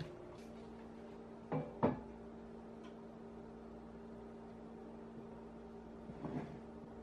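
A metal cake tin full of sponge cake batter knocking twice in quick succession against a wooden counter about one and a half seconds in, then a lighter clatter near the end as it is set down on a metal baking tray.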